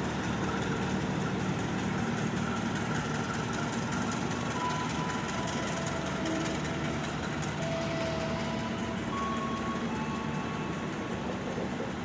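Passenger train's carriages rolling slowly past a station platform as the train pulls out: a steady rumble of steel wheels on rail, with a few faint, short squeals now and then.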